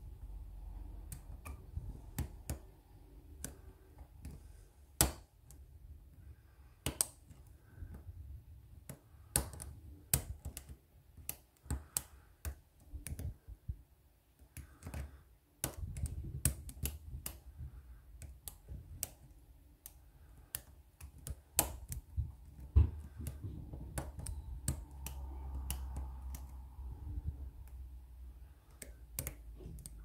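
Lock pick working the pins of a euro profile cylinder under tension: small sharp metallic clicks at irregular intervals, sometimes several a second, over a low rumble of fingers handling the lock.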